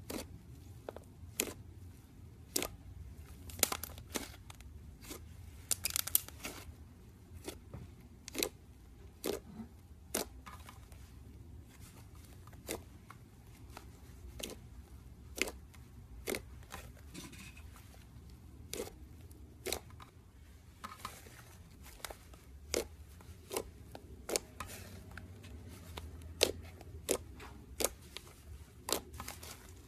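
Thick white slime being pressed, folded and poked by hand, giving irregular sharp popping clicks as air pockets in it burst, about one or two a second.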